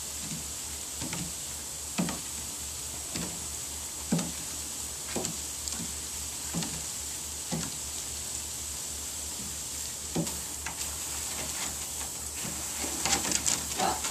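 Garden hose spraying with a steady hiss, with short dull thuds about once a second as the dog jumps at the spray on the wooden deck. The thuds come thicker near the end.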